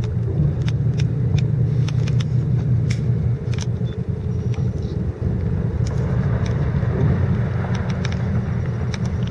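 Boat engine running steadily, a low drone with no change in pitch, with a few faint clicks scattered over it.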